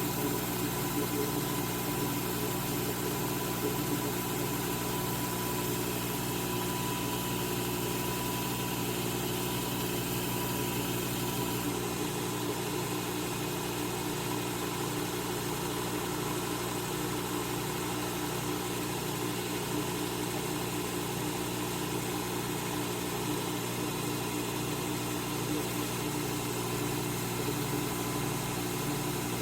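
Electric belt sharpener (Work Sharp Knife and Tool Sharpener) running steadily with a pizza wheel held against the moving abrasive belt, the wheel's edge being ground to raise a burr.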